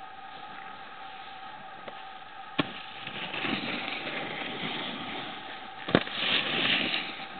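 Snowboard sliding and scraping over snow as a rider comes down past close by: a hiss that builds and is loudest near the end. A faint steady whine runs underneath, and two sharp clicks come about three seconds apart.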